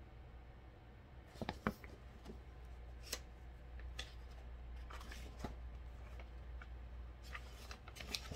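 Pages of a hardcover picture book being handled and turned: scattered soft paper rustles and clicks, the loudest about a second and a half in, over a low steady room hum.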